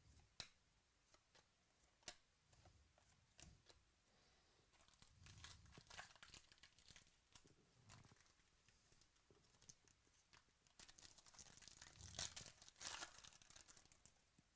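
Faint tearing and crinkling of trading-card pack wrappers being opened, with scattered light clicks; the rustling comes in two spells, the louder one near the end.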